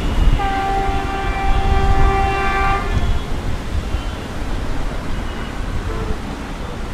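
Indian Railways WAP-4 electric locomotive sounding one long horn blast of about two and a half seconds as it approaches, over a low rumble.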